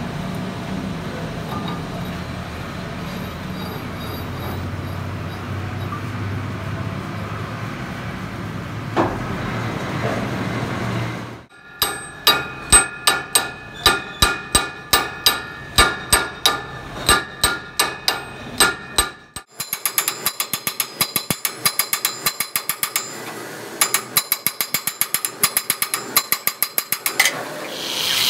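A metal lathe runs with a steady low hum. After a break, sharp ringing metal-on-metal strikes come at about two to three a second, then faster, lighter tapping at about five a second, typical of a hammer on the steel axle and nut while the nut is fitted onto the recut thread.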